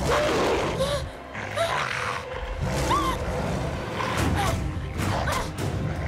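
Short high-pitched shrieks and screams, one after another, over loud music.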